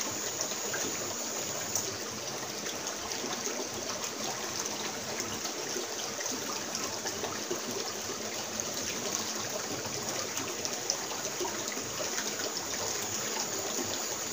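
Steady trickling of river water running over rocks, with a few faint ticks.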